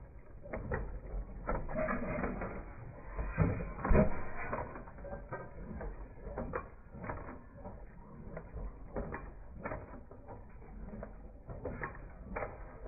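Irregular mechanical clicking and clanking from working machinery, loudest about four seconds in.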